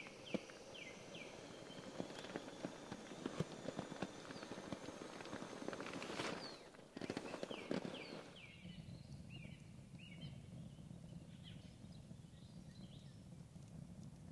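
Rustling nylon and clicking handling noises as a sleeping pad is inflated with a pump sack, with a louder rush of air and fabric about six seconds in. About eight seconds in this gives way to quiet outdoor ambience with repeated short bird chirps.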